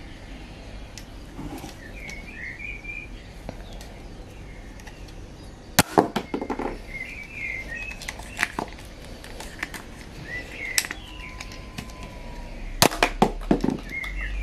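Sharp plastic clicks and clatter from a Nerf Triad EX-3 blaster as it is handled and its priming handle is worked, in a few short clusters. Small birds chirp in the background throughout.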